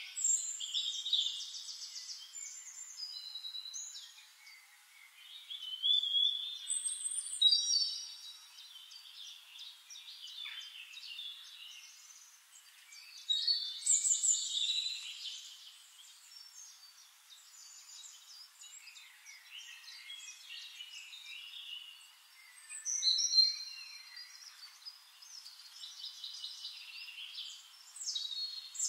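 Several forest songbirds singing, their chirping phrases and quick trills overlapping in a high register. A few louder song bursts stand out against quieter calls all through.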